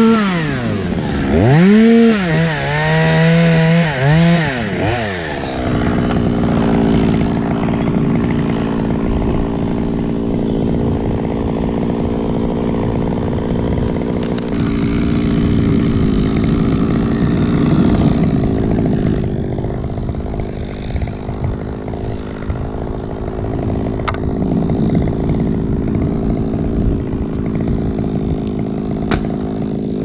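Top-handle two-stroke chainsaw, revved several times in the first five seconds with its pitch dipping and rising, then running at a steady speed.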